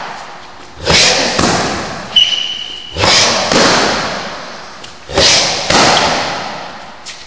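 Hard strikes on a hand-held focus mitt, in pairs about half a second apart, three times, each ringing out with a long echo in a large hall. A brief high squeak comes a little past two seconds in.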